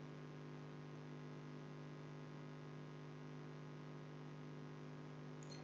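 Faint steady electrical hum with light hiss: the background noise of the narration microphone's recording chain.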